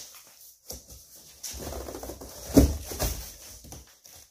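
Heavy cardboard box being ripped open by hand, its stapled seams tearing loose: irregular tearing and scraping starting about one and a half seconds in, with the loudest sharp rip about a second later.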